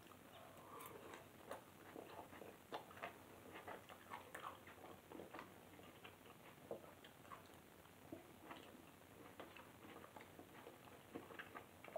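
Faint eating sounds: chewing, with irregular light clicks of a metal fork against a plastic bowl.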